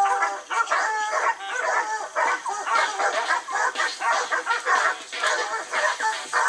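Hunting hounds barking and baying without a break in rapid, overlapping barks, holding a wild hog at bay.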